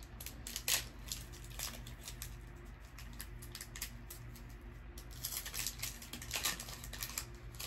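A Pokémon TCG booster pack's foil wrapper crinkling and being torn open by hand, a scatter of short crackles and rustles that is busiest near the end.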